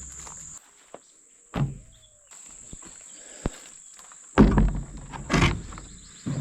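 Several handling thumps and rustles: a thud, a sharp click, then two louder thumps near the end. Crickets chirp steadily behind them, dropping out briefly early on.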